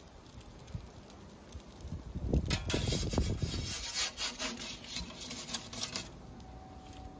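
A perforated metal pizza peel scrapes and rasps across the oven's baking stone in a run of rough strokes as it is pushed under a cooked pizza and drawn out. The scraping starts about two and a half seconds in and stops about six seconds in.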